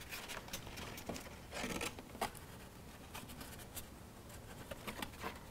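Faint rustling and scraping of cardstock being handled and pressed together, with scattered small clicks and a short scraping swish about a second and a half in.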